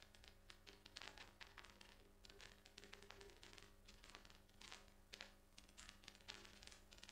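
Faint, irregular clicking and ticking from a computer keyboard and mouse as a value is typed and a drop-down list is scrolled, over a low steady electrical hum.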